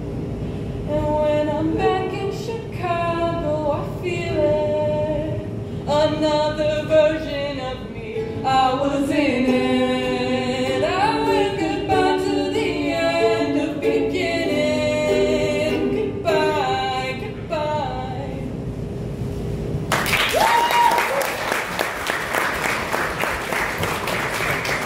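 A woman's voice singing a song to ukulele accompaniment, the song ending about twenty seconds in. Audience applause and a short whoop follow.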